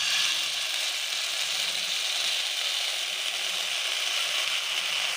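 Sabudana batter sizzling in hot ghee in a kadhai as it is poured in and spread: a loud, steady hiss that cuts off suddenly at the end.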